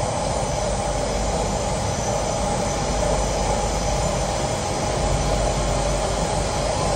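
Hong Kong MTR metro train running, heard from inside the carriage: a steady rumble of wheels on the track with a sustained mid-pitched whine.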